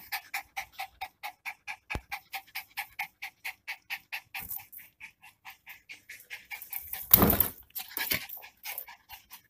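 Miniature Pinscher panting fast and evenly, about four to five breaths a second. A short, loud, rough noise cuts in about seven seconds in.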